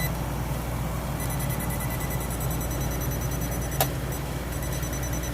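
Voltage tester beeping in a rapid, even pattern from about a second in, showing live power at the cooler's wiring. Under it runs the steady hum of the cooler's compressor and fan, running with the faulty temperature controller jumped out. A single click sounds near the middle.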